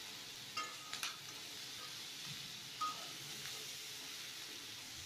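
Metal spatula stirring vegetables and shredded cabbage in an aluminium kadai, over a faint sizzle of frying. There are a few short metallic clinks of the spatula on the pan with a brief ring, about a second in and again around three seconds in.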